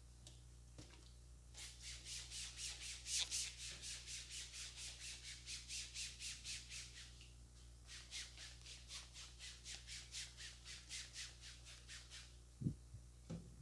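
Hands rubbing briskly over hair and scalp in a head massage, a rapid, even series of hissing strokes several times a second, in two runs with a short break between them. A single low knock near the end.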